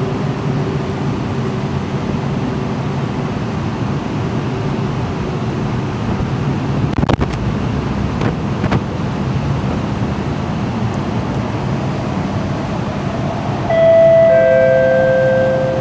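Steady low rumble on an underground MRT platform, with a single click about seven seconds in. Near the end the station's public-address chime sounds two falling notes, the signal that a station announcement is about to follow.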